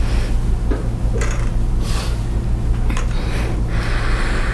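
A woman breathing hard in about five short, noisy breaths, catching her breath after a Y-strap spinal decompression pull, over a steady low hum.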